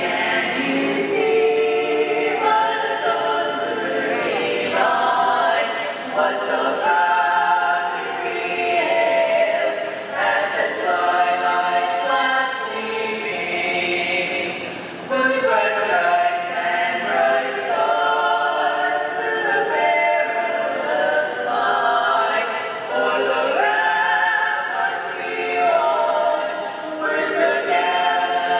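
A choir singing a cappella, several voices holding notes together in long phrases, with a brief break and a new phrase about halfway through.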